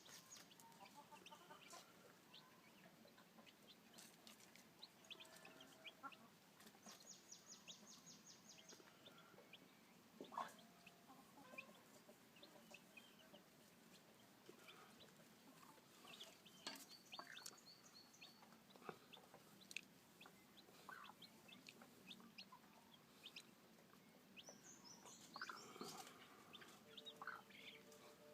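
Faint chickens: scattered short peeps and clucks from a flock of chickens with newly hatched chicks. A rapid, high trill comes in about seven seconds in.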